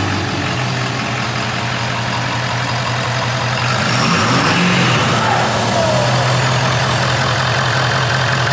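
Ford 6.7L Powerstroke turbo-diesel V8 idling steadily. About four seconds in it revs briefly and settles back, with a faint high whistle rising and falling after the rev.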